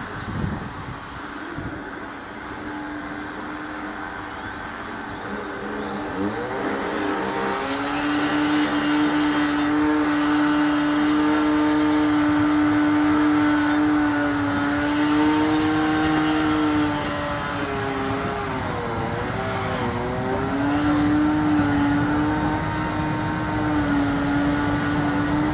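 Diesel train engine under power: its note climbs about a third of the way in, holds steady and loud, dips briefly past the middle, then picks up again.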